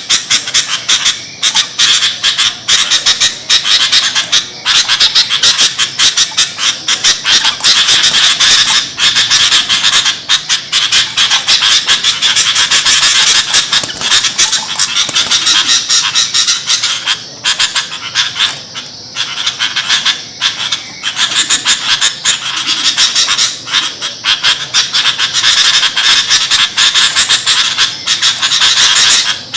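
Sooty-headed bulbuls (kutilang) calling noisily, a continuous chatter of quick notes overlapping with hardly a break, the busy calling used as a lure to draw in wild bulbuls.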